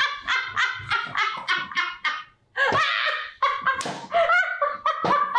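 A woman and a man laughing hard and helplessly, in rapid high-pitched bursts that break off for a moment about two seconds in, then start again.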